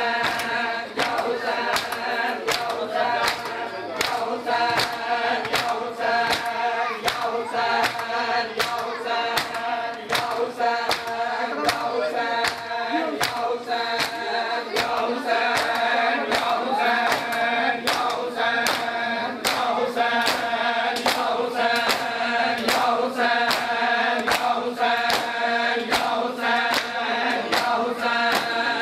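Male voices chanting a noha, a Shia Muharram lament, in unison, over a steady beat of open-handed slaps on bare chests (matam).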